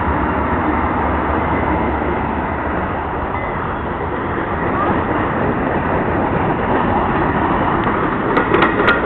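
Freight train passing at close range: the trailing diesel locomotive rumbles by in the first second or two, then covered hopper cars roll past with steady wheel-on-rail noise. A few sharp clicks come near the end.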